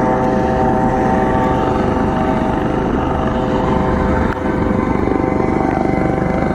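Coast Guard helicopter hovering close by: a steady, loud engine whine over the fast chop of the rotor blades.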